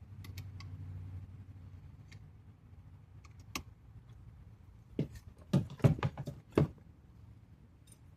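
Hand tools and small parts clicking and knocking while screws are being put back into a car door: a few light clicks, then a quick run of about six sharp knocks a little past halfway.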